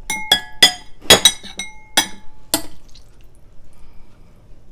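Metal serving tongs clinking against glass and ceramic bowls while noodles are lifted out: a quick run of sharp clinks, some ringing briefly, in the first two to three seconds, then only faint handling.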